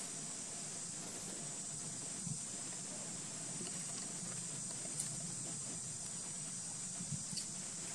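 Steady high-pitched hiss of outdoor ambience, with a faint low hum beneath it and a few faint ticks.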